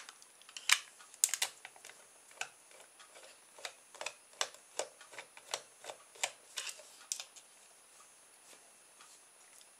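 Light clicks and taps of plastic parts and a small screwdriver as a plastic clockwork toy boat is unscrewed and taken apart, a scatter of sharp clicks that stops about seven seconds in.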